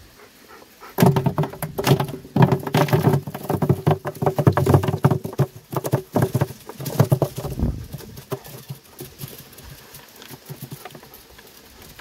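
Hazelnut clusters in their leafy husks poured from a plastic bucket into a large plastic barrel: a dense rattle of nuts hitting the barrel, starting about a second in. After about eight seconds it thins to a light patter as the last clusters slide out.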